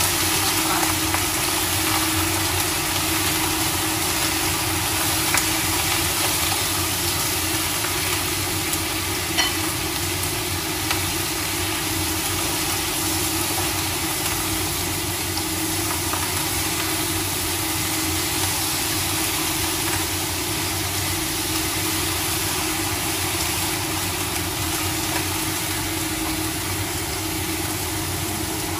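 Leafy greens sizzling as they are stir-fried in a wok over a gas burner, over a steady mechanical hum. A few light clicks of the utensil against the pan.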